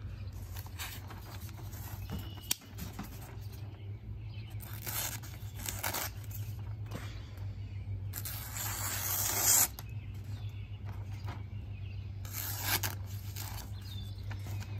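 A folding knife with a freshly touched-up recurve blade slicing through a held-up newspaper page several times, each cut a short papery swish, the longest just over a second about eight seconds in. A single sharp click comes about two and a half seconds in. The cuts are a sharpness test of the edge after a pass with a diamond rod.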